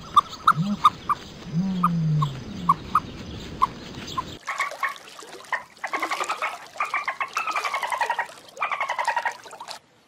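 Ostrich chicks peeping in short high notes, with a few low hooting calls under them. About four seconds in the sound cuts abruptly to a different animal: series of rapid, rasping calls that fall in pitch, repeated for about five seconds.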